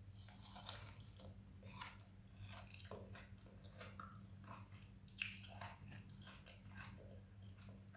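Close-up mouth sounds of someone eating soft, ripe mango: wet chewing, smacking and sucking in short, irregular clicks, faint overall, over a steady low hum.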